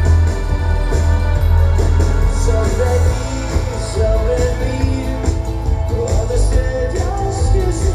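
Pop-rock song with a sung vocal over a heavy bass line, played back through a home hi-fi system. The bass eases about three seconds in.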